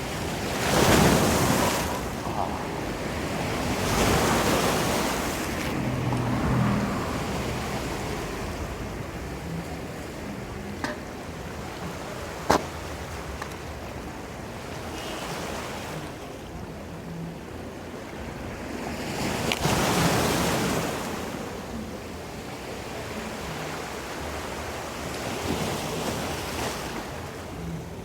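Ocean surf: waves breaking and washing in, in rising and falling swells, the biggest about a second in, around four seconds in, and past the middle. A single sharp click near the middle.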